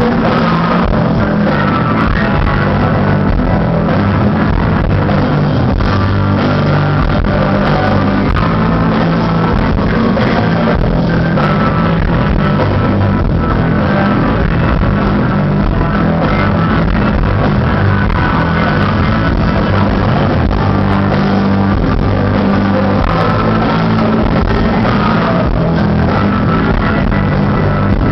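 Rock band playing live and loud: electric bass, electric guitar and drums, with the sound steady and unbroken.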